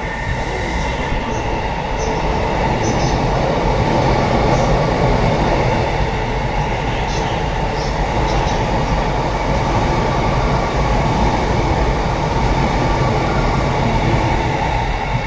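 Sotetsu 12000 series electric train passing through a station at speed without stopping: a loud, steady rumble of wheels on rail, with a few brief high squeaks in the first half.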